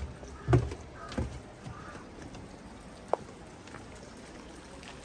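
Two footsteps thudding on a wooden floor within the first second and a half, with a crow cawing faintly in the background. A single sharp click about three seconds in, then only the faint outdoor background.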